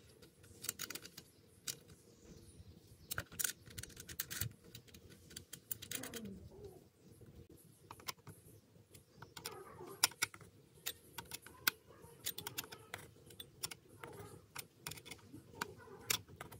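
Scattered light clicks and metallic ticks from fitting a chainsaw's guide bar and chain by hand: the plastic side cover seated over the bar studs, and a screwdriver turning the chain-tension screw.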